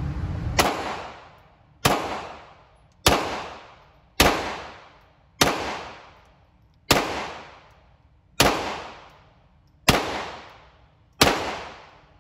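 Ruger Mark IV .22 LR pistol fired nine times at a slow, steady pace, a shot every second or so. Each sharp crack trails off over about a second.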